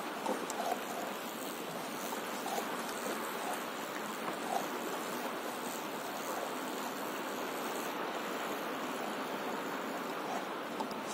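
Small waves lapping against a stand-up paddleboard on open sea: a steady watery wash with a few small splashes in the first seconds and again around the middle.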